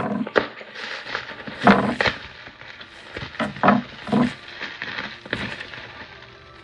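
Packaging wrap crinkling and rustling in irregular loud bursts as a mail-order plant's insulated wrapping is pulled open by hand.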